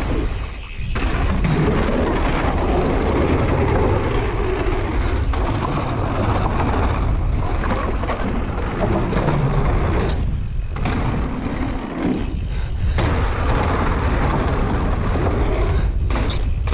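Mountain bike ridden fast down a dirt trail, recorded on a POV action camera: rough wind buffeting on the microphone mixed with tyre and trail noise. The noise briefly drops away several times.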